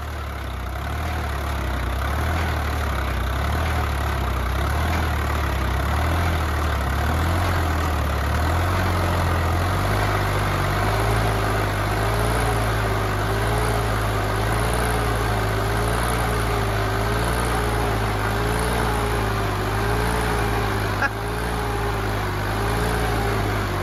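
Diesel tractor engines of a Swaraj 744 XT and a Kubota running under heavy load as the two tractors pull against each other in a tug-of-war. About ten seconds in the engine note shifts and a wavering whine joins it.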